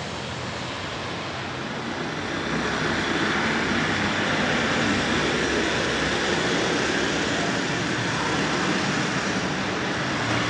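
N-scale model train running on the layout's track, a steady rushing rumble that swells about two and a half seconds in and eases off a little near the end.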